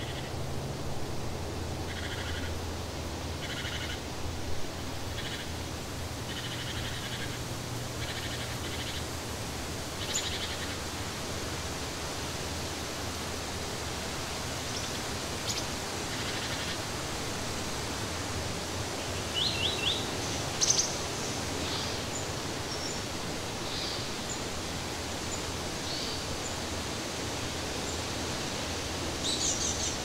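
Steady outdoor hiss with scattered short bird chirps, including a quick run of about four near the middle, over a low hum that fades out about nine seconds in.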